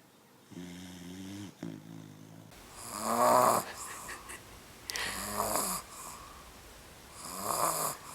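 Sleeping puppy snoring loudly, three rasping snores about two seconds apart, the first the loudest. Before them, two short pitched breath sounds come from another sleeping dog.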